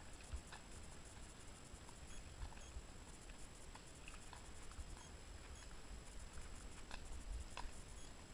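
Faint, irregular soft clicks and low thuds, about one or two a second, from a ridden horse walking: hooves on the forest track and creaking tack.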